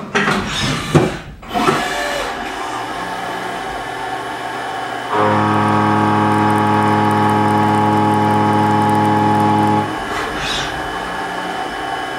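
Background music with long sustained chords. The loudest chord is held from about five seconds in until nearly ten seconds in. Several sharp clicks come in the first two seconds, over a steady hiss.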